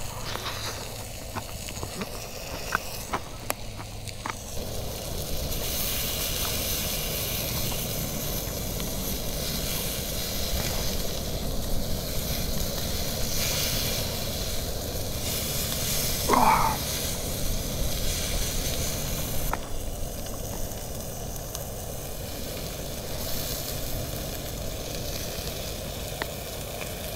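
Food sizzling on the hot plate of a small portable gas grill, a steady hiss with scattered light clicks from handling. A brief rising squeak about halfway through.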